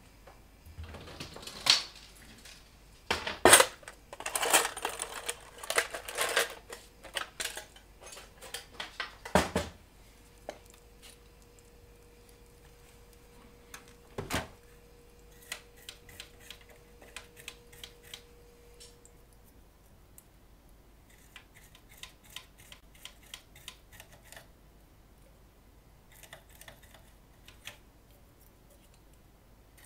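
Knocks, clatter and rustling as the open metal chassis of a vintage rack delay unit is handled and repositioned, loudest in the first few seconds. Later comes a fast, faint scratchy ticking of a small brush scrubbing the circuit board with isopropyl alcohol.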